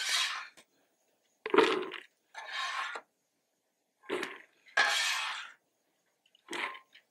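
A metal food-mover scoop scraping across a Blackstone griddle's steel top as it scoops up popped popcorn, in six short scrapes with pauses between, the popcorn rustling and spilling.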